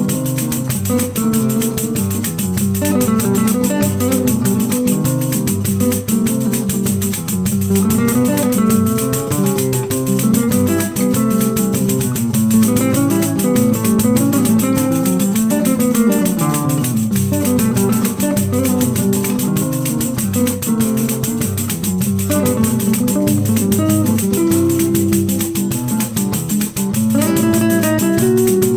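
Classical guitar playing a choro melody: a running line of plucked notes over bass notes.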